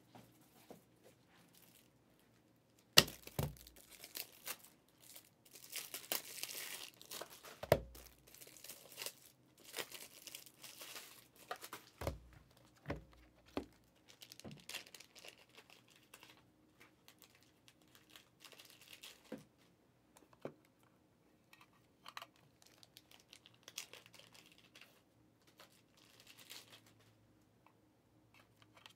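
Trading card pack wrappers being torn open and crinkled, in irregular spells, with a few sharp knocks as packs or cards are set down on the table.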